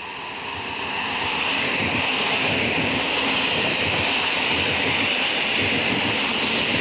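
Regional electric multiple unit passing close at speed: a steady rushing of wheels on rail that grows louder over the first second and then holds.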